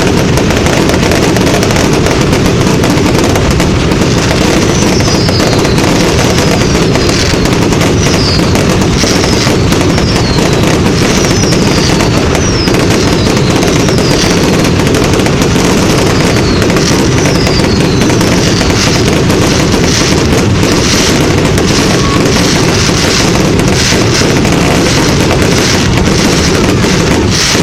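A dense, continuous fireworks barrage: overlapping bangs and crackling blur into one loud, unbroken roar. Short falling whistles repeat through the first half.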